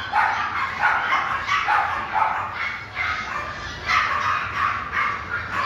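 Puppies yapping, a rapid run of short high-pitched barks, two or three a second without a break.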